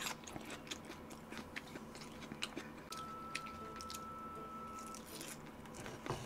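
Close-miked crunchy chewing and biting of a chicken salad with crisp lettuce and onion: a string of small, irregular crackles.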